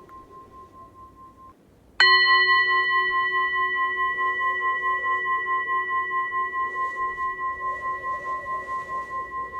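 A singing bowl struck once about two seconds in, ringing on with a slow pulsing wobble as it gradually fades. Before the strike, the ring of an earlier stroke is dying away.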